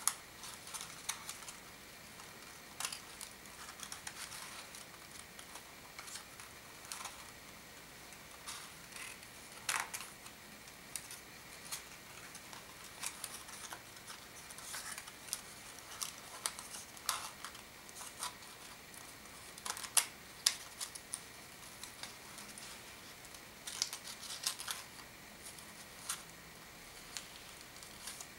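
Folded origami paper units rustling and crinkling in the hands as they are slotted together, in irregular short crackles and taps.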